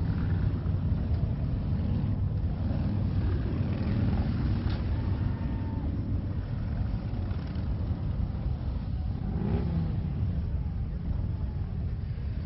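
Steady low rumble of road traffic, with a few faint passing sounds over it.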